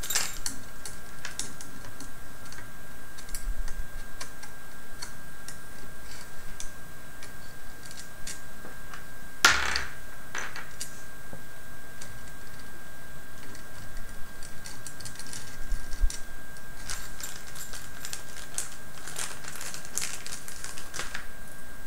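Small plastic and metal robot-kit parts clicking and rattling as they are handled and fitted on a wooden tabletop, with one louder clack about nine and a half seconds in. A faint steady high tone runs underneath.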